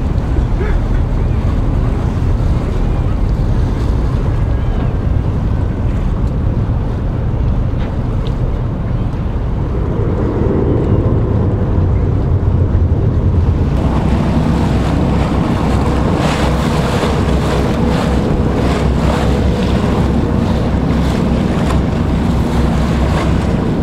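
Wind buffeting the microphone over the wash of waves and a low boat rumble. About halfway through it turns brighter and more gusty, with ragged splashy noise.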